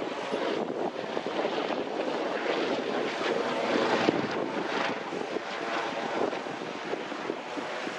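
Airliner engines running, a steady rushing noise that is loudest about halfway through.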